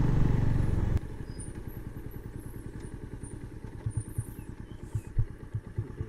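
Motorcycle engine running. About a second in it drops sharply to a quieter, uneven low putter, with a few stronger pulses near the end.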